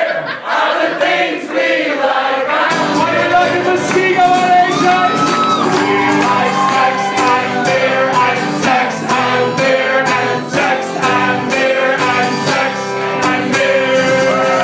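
Live acoustic guitar strummed with a male singer and a crowd singing along and clapping. The voices start without accompaniment, and the strummed guitar and beat come in about three seconds in.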